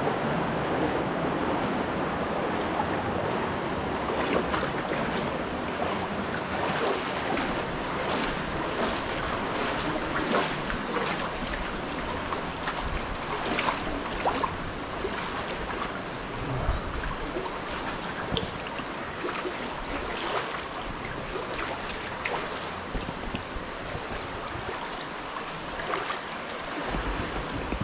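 Mountain creek rushing over rocks, a steady rush of water with many small splashes and gurgles.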